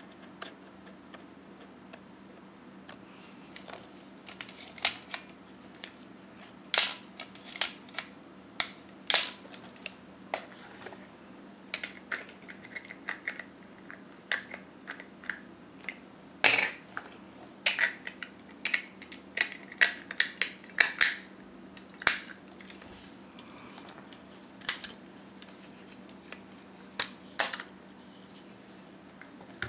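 Irregular sharp clicks and small knocks from a Nikon EM 35 mm SLR film camera being handled, its controls and body clicking as it is turned over in the hands.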